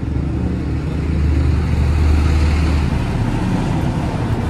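Low rumble of a motor vehicle running close by, swelling toward the middle and easing off near the end.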